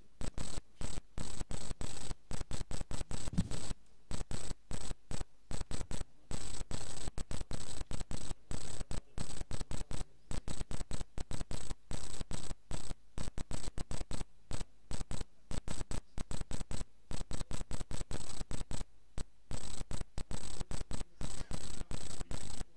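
Choppy hiss and crackle of electrical noise in the sound feed, cutting in and out many times a second, with a thin steady high whine.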